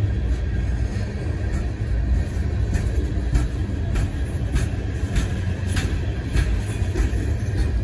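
Freight train rolling past: a steady low rumble with a regular sharp click about every 0.6 seconds, starting a couple of seconds in.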